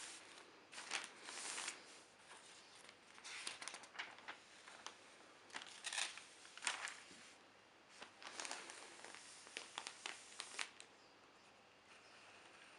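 Newspaper pages rustling and crinkling as a page is turned and handled, in a string of papery bursts with small crackles that die away near the end.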